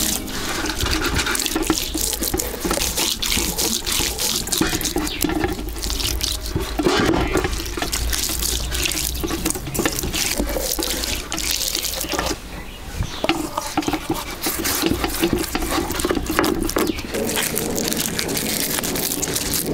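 Hands rubbing salt over a wet, scored whole fish in a metal tray: wet rubbing and slapping, with many small knocks and scrapes against the tray.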